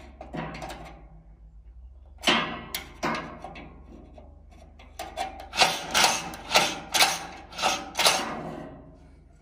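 The steel cleaning rod of a pellet stove's heat exchanger is pushed and pulled through a slot in the top grille, knocking and scraping against the metal inside. A few separate strokes come first, then a quick run of about seven strokes.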